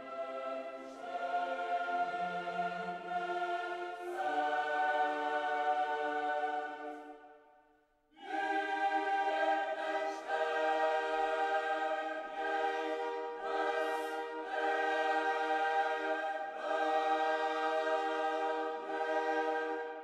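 Background music of slow, sustained choral chords, the chord changing every couple of seconds. It fades away about seven seconds in and comes back with a new chord about a second later.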